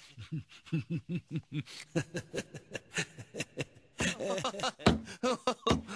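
An animated elderly man's voice laughing in a string of short chuckles, about four a second. It grows louder and denser about four seconds in.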